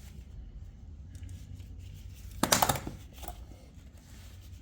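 Hand tools being handled and picked up, with a short rattling clatter about two and a half seconds in, over a low steady hum.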